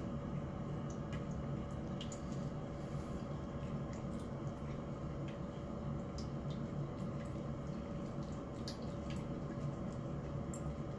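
A cat eating from a bowl of dry kibble and salmon: wet chewing broken by scattered short, crisp crunches, over a steady low hum.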